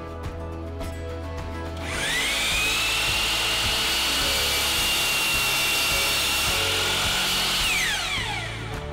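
Bosch compact miter saw starting about two seconds in, its motor whine rising quickly and holding steady while it crosscuts a plywood drawer back, then winding down with a falling whine near the end.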